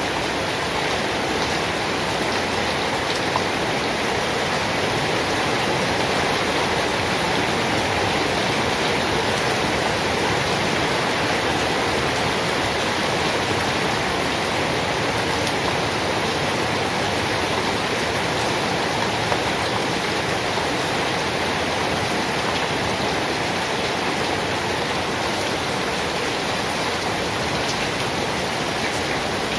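Steady heavy rain falling, an even hiss of water with a few single drops standing out now and then.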